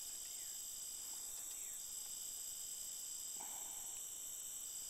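A night chorus of crickets and other insects: steady, high-pitched trilling in several overlapping pitches, one voice dropping out for a moment and coming back. A brief faint rustle or whisper-like noise comes about three and a half seconds in.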